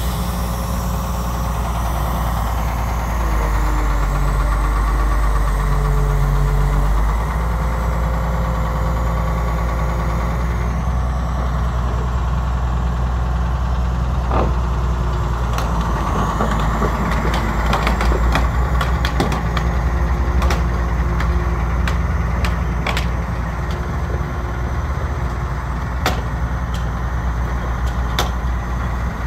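Kobelco SK400 log loader's Mitsubishi diesel engine idling steadily, a little louder for a few seconds about three seconds in, with scattered sharp clicks in the second half.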